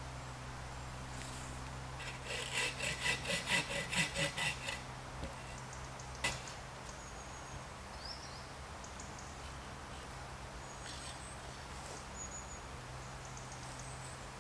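A quick run of about nine rhythmic scraping strokes, roughly four a second, lasting a little over two seconds, followed a little later by one sharp click. A low steady hum runs underneath.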